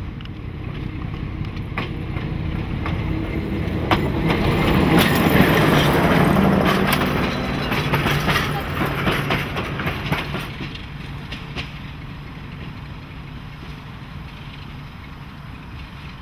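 Old TGR diesel locomotive hauling passenger carriages past at close range: its engine drone grows louder, then the carriage wheels click over the rail joints for several seconds, and the sound fades as the train draws away.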